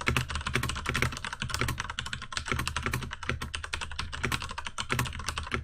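Fast continuous typing on a mechanical keyboard with Cherry MX Brown tactile switches and no O-rings: a dense patter of key clicks, with keycaps bottoming out.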